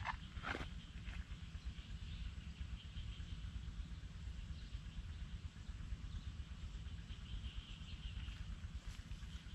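Outdoor ambience: a steady high-pitched insect drone over a constant low rumble, with a couple of short clicks about half a second in.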